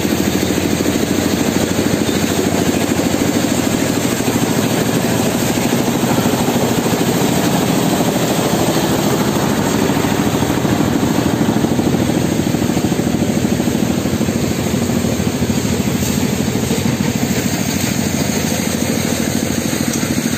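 Stone-crushing machinery running, a loud, continuous mechanical rattle with a fast, even pulse that does not change.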